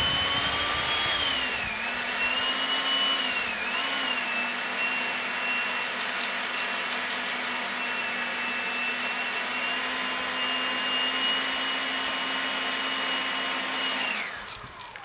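Wooden whirligig propeller spinning fast in the wind, a steady whirring whine over a hiss of wind. Its pitch rises and dips with the gusts at first, then holds; near the end the pitch falls and the sound drops away.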